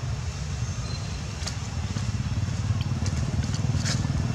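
A motorcycle engine running nearby, its low pulsing rumble growing louder over the second half. A few short clicks sound over it.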